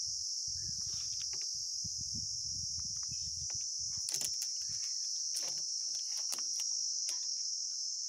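Insects chirring in a steady high-pitched drone, with low rumbling and a few light clicks from a PVC pipe being handled and pushed into a tee joint.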